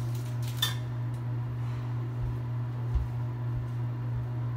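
Light metallic clinks of anodized aluminum shelf brackets being handled against the tile wall and toilet tank, one ringing briefly about half a second in, with dull thumps about two and three seconds in, over a steady low hum.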